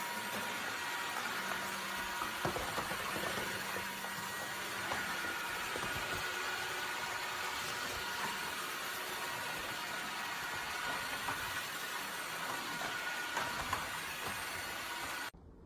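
Dreame H12 cordless wet-dry vacuum mop running steadily: an even hiss with a faint high whine, cutting off suddenly near the end.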